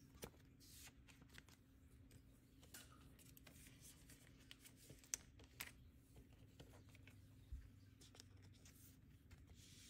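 Near silence, with faint scattered clicks and rustles of photocards being handled and slid into plastic binder sleeve pockets.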